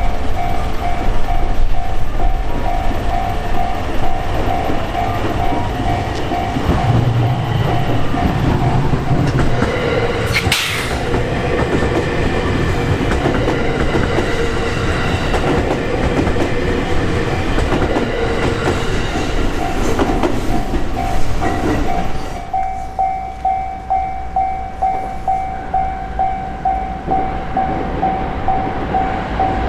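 Japanese railroad crossing alarm ringing with a steady repeating electronic ding while a JR Hanwa Line train passes over the crossing with rumbling and wheel clatter. About three-quarters of the way through, the train noise falls away and the crossing bell rings on alone, about one and a half dings a second.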